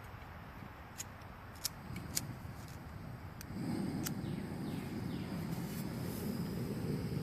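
Several sharp clicks, then from about three and a half seconds in a steady rushing roar: a camp stove being lit and burning to heat food.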